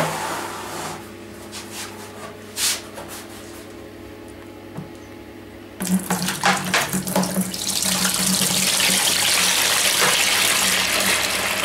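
Fermenting plum wine must pouring from a tipped plastic barrel into a plastic bucket as the liquid is drained off the pulp. A steady, splashing gush starts suddenly about halfway through and builds, after a few knocks earlier on.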